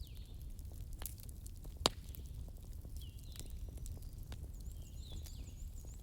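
Wood bonfire crackling over a steady low rumble, with scattered sharp pops, the loudest about two seconds in. Birds call in the background with short, repeated falling chirps.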